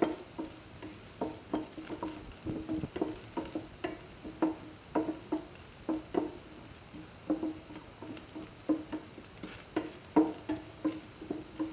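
Spatula stirring food in a metal pan, knocking and scraping against it about twice a second in an uneven rhythm; each knock rings briefly at the same pitch.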